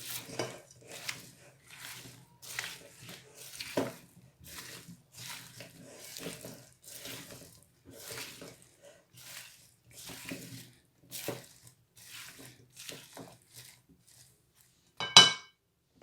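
Cut potatoes and vegetables, coated in olive oil and seasoning, being stirred and tossed in a bowl: a rhythmic scraping and tumbling about twice a second, with one loud ringing clink near the end.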